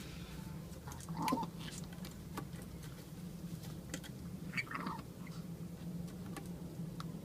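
Young racing pigeon cock pecking and scuffling: scattered light beak clicks and taps, with two louder scuffles, one about a second in and one near five seconds, over a steady low hum.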